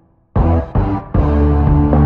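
Music: after a moment's silence, loud sustained chords come in, with a deeper, fuller chord joining about a second in.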